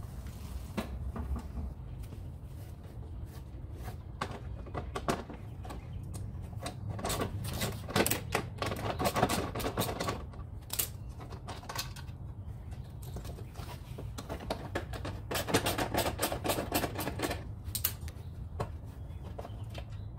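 Clicking and rattling from the front belt cover of a Toro Recycler 22 mower as it is worked loose by hand, with two dense runs of rapid clicks, one about a third of the way in and one past the middle.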